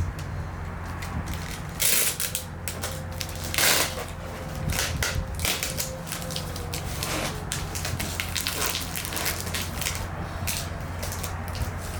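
Packing tape being pulled off the roll and pressed onto a cardboard box: a run of crackling, ripping strokes, the loudest about two seconds in and again near four seconds, over a steady low rumble.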